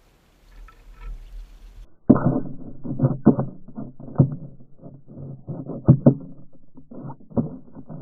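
Muffled knocks and scraping against the camera's housing, starting about two seconds in: a loud, irregular run of dull thumps with rustling between them.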